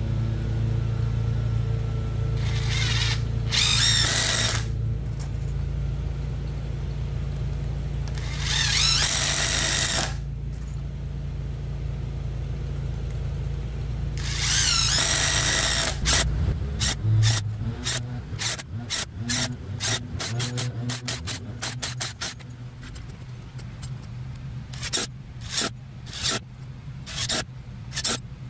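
Ryobi ONE+ PBLID02B impact driver driving long construction screws into a wooden post: three runs of about two seconds each, hammering with a high whine, over a steady low hum. In the second half come many short sharp clicks.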